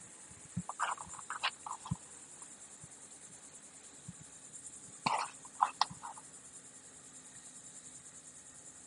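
A steady, finely pulsing high-pitched insect buzz, with two brief clusters of short, sharp noises, one about a second in and one about five seconds in.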